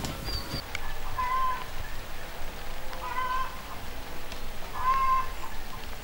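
A cat meowing three times, each a short call about two seconds apart.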